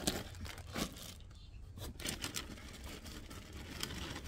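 Plastic bag rustling and crinkling in short, scattered rustles as yarn cakes are handled in it, over a low steady hum.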